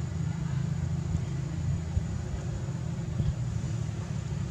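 Steady low rumble that wavers in level, with a faint thin high whine held steady above it.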